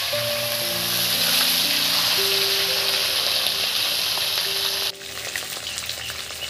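Whole bhola fish shallow-frying in hot oil in a karahi: a loud, steady sizzle that drops suddenly to a quieter sizzle about five seconds in.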